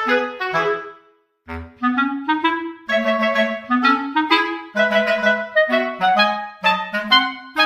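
Instrumental background music: a run of short, separate notes over a bouncing bass line, breaking off briefly about a second in before picking up again.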